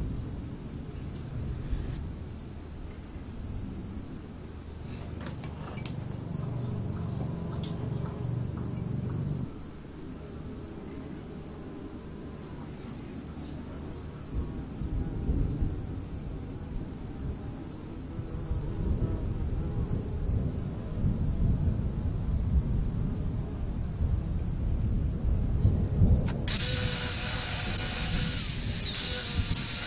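A rag rubbing and scrubbing over a metal motorcycle wheel hub, with insects chirring steadily in the background. About 26 seconds in, an electric power tool with a spinning attachment starts against the hub with a loud, high whine.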